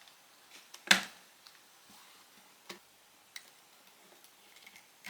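Scattered clicks and snaps as the Samsung Galaxy S6 edge's removable frame is pulled off its clips. The loudest click comes about a second in, followed by a few fainter ticks.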